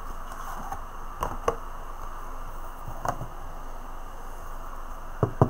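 A few light clicks and taps of DVD cases being handled on a wooden table, over a steady hiss: one pair of clicks about a second in, one near the middle, and a quick pair near the end.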